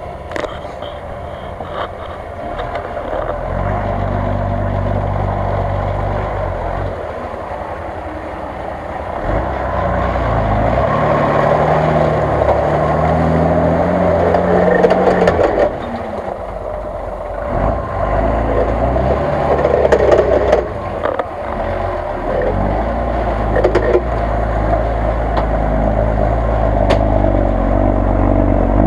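Engine of a lifted Jeep Cherokee on huge mud tyres running under heavy load and revving up and down. The wheels churn through deep mud and slush.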